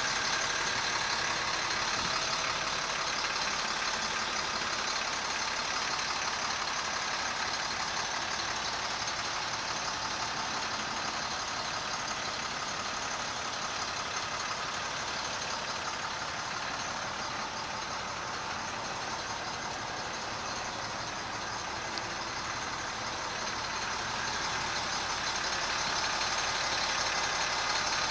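International 4300's DT466 inline-six diesel idling steadily, a little fainter midway and louder again near the end.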